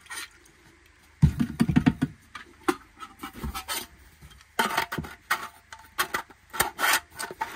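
Handling noises from a titanium canteen and its parts on a workbench: a cluster of knocks and thuds just over a second in, then a run of sharp clicks and scrapes from about four and a half seconds in as the canteen's metal screw cap is turned.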